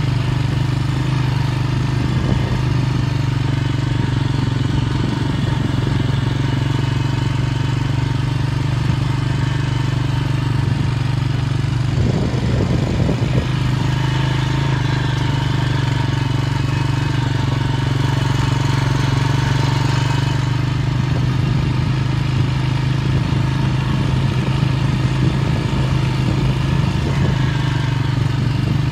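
A vehicle engine running steadily at a constant speed, with a brief rougher patch about twelve seconds in.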